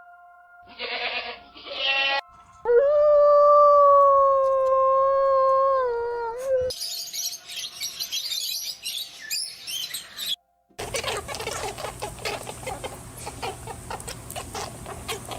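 Goat bleating: a short bleat about a second in, then one long, steady bleat of about four seconds. Then come a stretch of hissy noise and, after a brief cut, a rough, crackly noise with a low hum.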